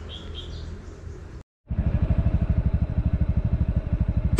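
Motorcycle engine running close by as the bike is ridden, a loud, rapid, even putter that starts abruptly about a second and a half in after a brief break. Before it there is a quieter low hum with a few short high chirps.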